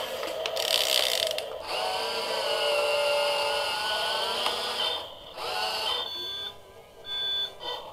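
Battery-powered toy grappler crane's small electric gear motors whining as its arm and grapple move, starting and stopping, with a brief break about five seconds in and a few short high tones near the end.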